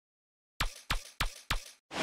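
Intro sting of four sharp percussive hits, evenly spaced about a third of a second apart, each dying away quickly. Right at the end a loud rushing of water cuts in.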